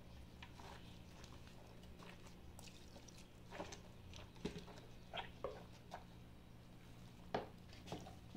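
Faint wet squelches and soft clicks of a gloved hand pressing and arranging raw pork steaks in a stainless steel pot, starting a few seconds in and coming irregularly about a dozen times.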